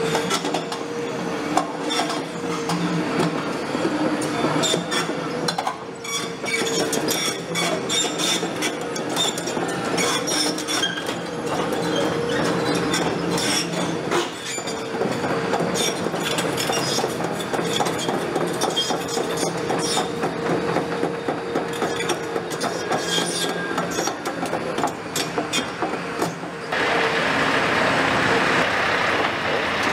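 Caterpillar 340F crawler excavator travelling on its tracks: the engine runs with a steady whine while the steel track links clank and squeak. Near the end this cuts abruptly to a louder, steadier vehicle engine noise.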